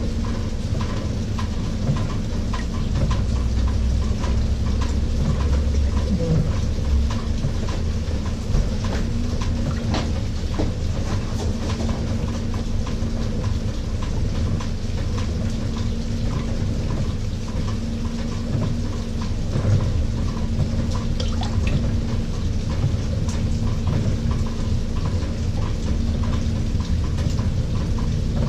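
LG 18 kg top-load washing machine running its delicate wash: a steady motor hum under continuous water sloshing, with many small clicks and knocks from the churning load.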